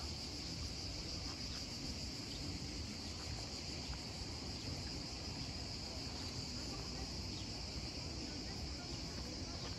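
Insects in the garden trees and hedges keep up a steady, unbroken high-pitched drone.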